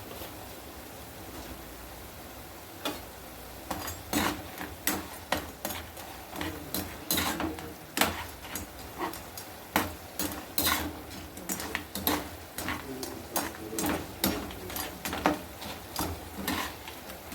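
A utensil clinking and knocking against cookware, as in stirring or handling food in a pan. The knocks come irregularly, about two a second, starting about four seconds in after a mostly quiet start.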